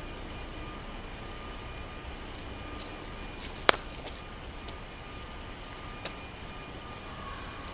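A stocking pouch filled with homemade cornstarch colour powder thrown onto a concrete driveway, landing with one sharp smack about three and a half seconds in. A few much fainter clicks and scuffs come before and after it.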